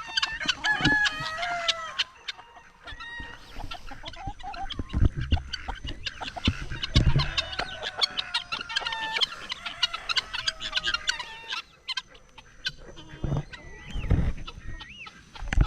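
Chickens clucking, a dense run of short calls and sharp clicks as the flock goes after worms, with a few low thumps mixed in.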